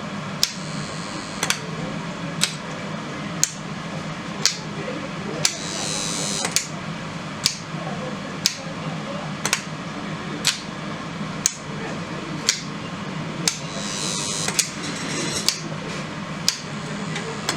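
Graviner Mk 5 oil mist detector running on test: a steady low hum with a sharp click about once a second, and a few brief bursts of hiss.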